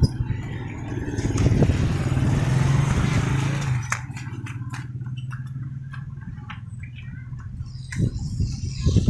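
A motor vehicle's engine runs with a steady low hum under a rushing noise that is loudest in the first few seconds and then dies down, with scattered knocks.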